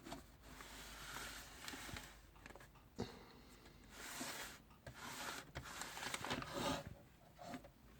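Faint handling noise on a plastic toy: irregular scraping and rustling, with a sharp click about three seconds in.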